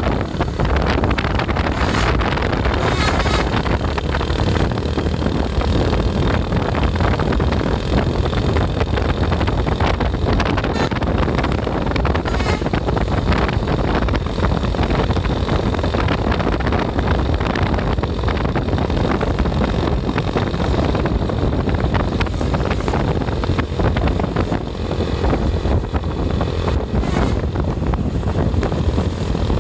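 Steady engine and road noise of a moving vehicle, with wind rumbling on the microphone.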